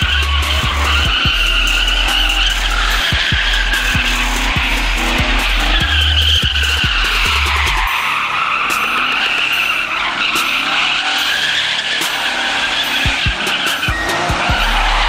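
Tyres squealing steadily and wavering in pitch as cars spin donuts in a sideshow. A deep bass line plays underneath, dropping out about halfway and returning near the end.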